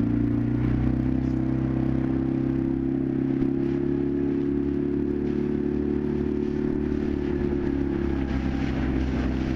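Motorboat engine running under way. It rises in pitch as it speeds up at the start, then holds a steady note and eases off slightly near the end.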